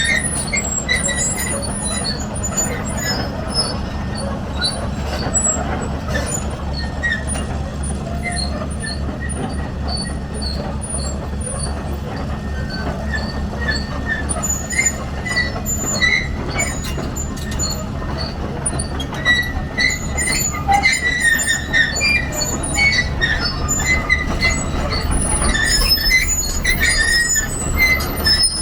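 Komatsu PC210LC-10 hydraulic excavator's diesel engine running steadily, with many short high-pitched squeaks over it that become more frequent near the end.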